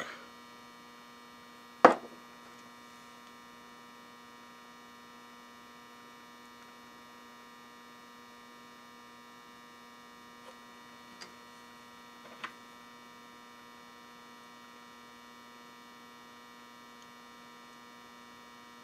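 Steady electrical mains hum. About two seconds in comes a single sharp knock of a small object set down on the workbench, and a few faint ticks follow later as small parts are handled.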